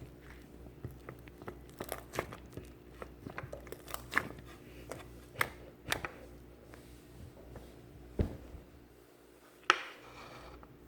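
Ivory slime being squished and stretched by hand, giving irregular sharp clicks and pops; a few louder single snaps come near the end.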